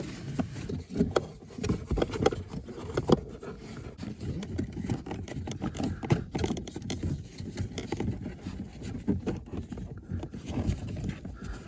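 A pleated cabin air filter being pushed and worked into its plastic housing in a car's dash: irregular light knocks, scuffs and scrapes of the filter frame against the plastic. The filter keeps snagging instead of sliding in.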